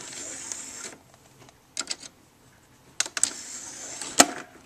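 Motorised disc tray of a hearse-shaped novelty CD player whirring as it slides, in two stretches, with sharp clicks between them and a loud click near the end.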